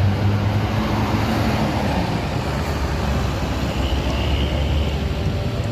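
A large bus driving past close by, its engine rumbling low under a steady roar of tyre and traffic noise.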